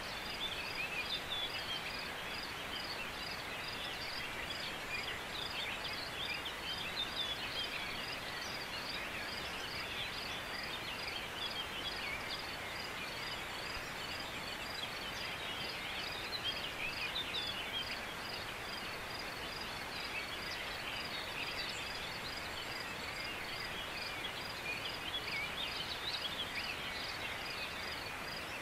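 Open-air ambience of many small birds singing in the distance, over a steady high chirp repeating about twice a second.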